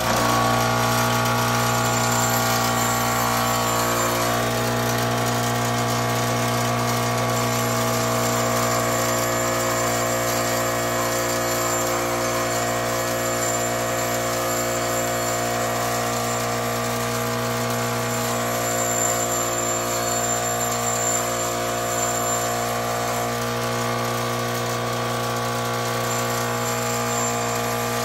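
Bench grinder running at steady speed, its motor humming on a constant tone, with the hiss of a metal Bowie knife guard being ground against the wheel.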